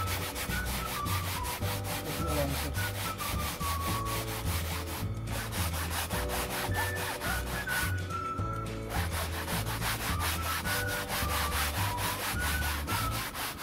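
A cloth scrubbing back and forth over a car's fabric headliner, wiping off foam cleaner, in quick strokes that pause briefly twice. Background music with a bass line and melody plays underneath.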